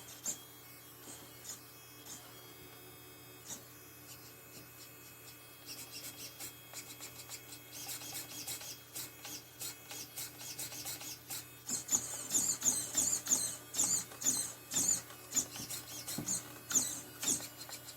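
Irregular scratchy rubbing and clicking, faint at first, starting about six seconds in and growing busier and louder, with sharper high-pitched chirps from about twelve seconds on.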